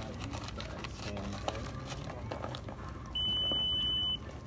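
A single steady high electronic beep, about a second long, in the second half, from the checkout's card payment terminal during a card payment, over low store background noise.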